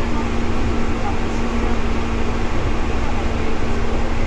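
Interior running noise of a Seibu 2000 series electric train, recorded above the car's line breaker: a steady rumble of wheels on rail with a constant low hum.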